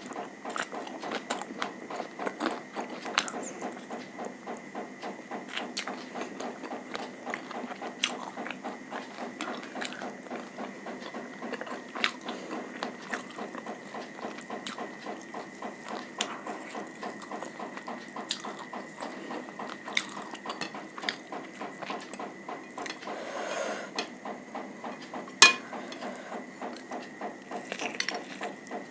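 Close-miked eating sounds: steady chewing with many small wet clicks and smacks, and one sharper click near the end. A faint steady high whine runs underneath.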